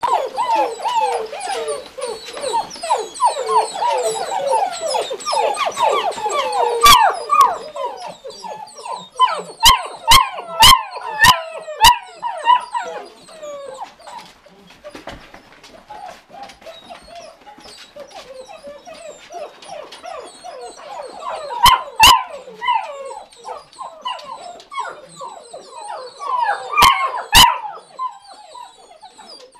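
A litter of Irish wolfhound puppies whining and yipping over one another, hungry and waiting to be fed. The chorus is thickest in the first several seconds, then thins, broken by short clusters of sharp, high-pitched barks.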